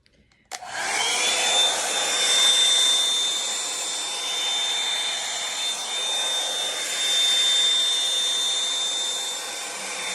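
Revlon One-Step hot-air brush switched on about half a second in, its motor spinning up with a high whine that rises and settles, then running steadily with rushing air.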